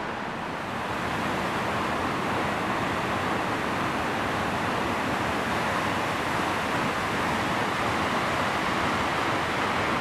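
Joren Falls, a waterfall plunging into its plunge pool, and the stream running over rocks below it: a steady rush of falling and running water, growing a little louder about two seconds in.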